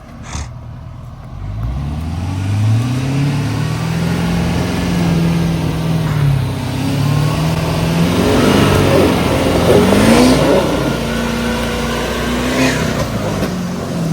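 Ford F-350 pickup engine revving hard under load on a dirt climb. The pitch rises and falls several times as the throttle is worked, with a gritty crackling in the middle.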